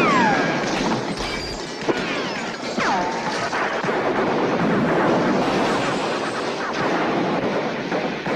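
Film sound of a house being shot up by sustained gunfire: a dense, continuous din of smashing and crashing. Falling whines cut through near the start and about three seconds in, and there is one sharp crack just before two seconds.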